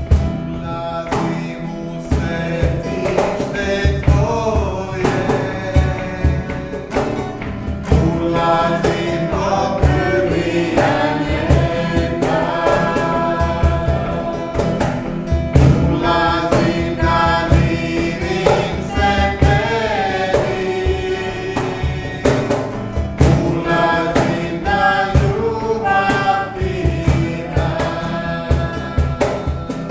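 A man and a woman singing a worship song together to a strummed acoustic guitar, over a steady low drum beat.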